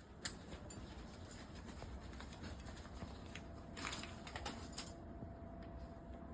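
Mechanical keyboard with HMX linear switches being typed on: scattered key clacks, a loud one right at the start and a short run of louder ones about four seconds in, with fainter keystrokes between them.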